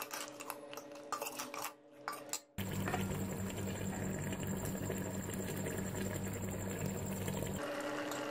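A metal spoon clinking and scraping against an aluminium cooking pot as boiled goat trotters are stirred. About two and a half seconds in, this gives way to a steady hiss that stops suddenly near the end.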